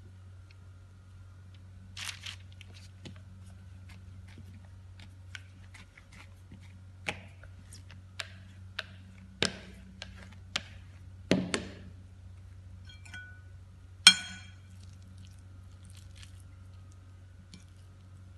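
Hands working bun dough: a rolling pin knocking and tapping on a silicone baking mat in scattered soft knocks, with a bright ringing clink about 14 seconds in.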